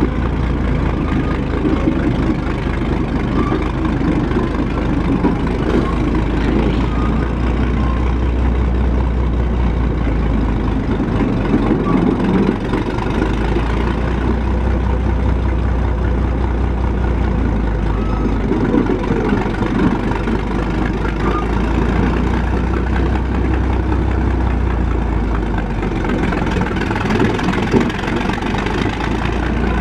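Engine of a 1917 Holt 120 crawler tractor running steadily as the tractor moves under its own power, a deep low throb that swells and eases in long stretches.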